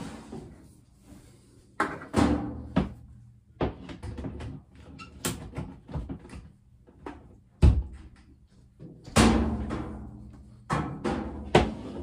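Knocks, bumps and clattering from a washer and dryer being handled as a man reaches down behind them and works the hoses and cord. The bumps come irregularly, with one heavy thump a bit past halfway.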